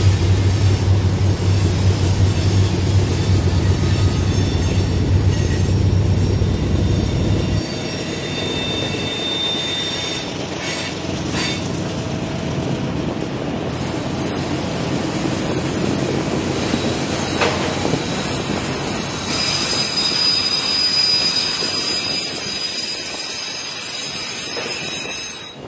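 Diesel-hauled freight train on a mountain grade: a deep diesel locomotive drone that stops abruptly about seven or eight seconds in, then freight cars rolling past with thin, high-pitched wheel flange squeal as steel wheels grind the rail on the curves.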